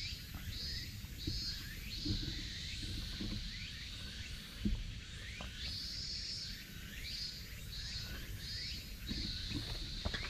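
A high-pitched animal call repeating in a phrase: a long note, a few short notes, then a longer drawn-out note, with the phrase starting again about six seconds later. Steady low background noise runs underneath.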